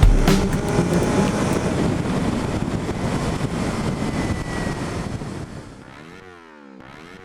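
Kawasaki Z300 motorcycle running with wind noise on the microphone, fading away over about five seconds. A faint warbling sweep follows near the end.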